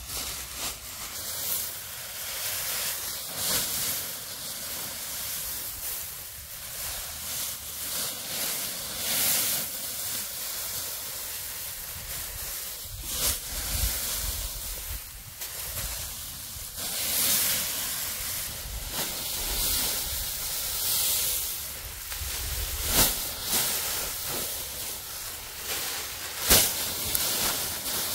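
Continuous hissing rustle, with a few sharp snaps or knocks standing out about halfway through and near the end.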